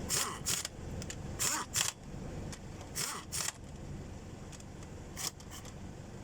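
Short scrapes and clatters of work on the engine, six or so spread over about five seconds, over a steady low rumble.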